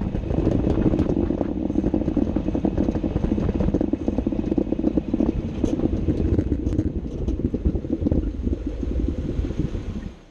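Underbody running noise of a Jeep Wrangler JK, heard from beneath the vehicle: a loud, rough drivetrain and road rumble with a rapid chattering grind, the grinding noise being tracked down. It cuts off abruptly near the end.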